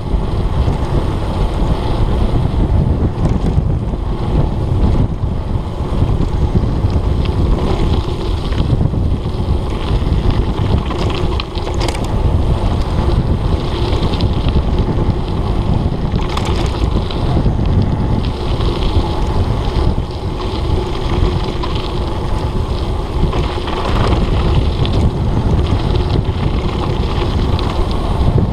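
Loud wind buffeting on the microphone of a body-mounted action camera on a mountain bike speeding downhill on a gravel road, mixed with the rumble of the tyres on the dirt. A few short knocks and rattles come from bumps, two of them about halfway through.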